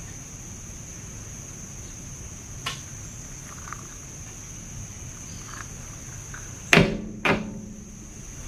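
Glass pitcher with ice set back down on a hard counter: two sharp knocks about half a second apart near the end, the first with a brief ringing tail, over a steady background hum and a few faint clicks.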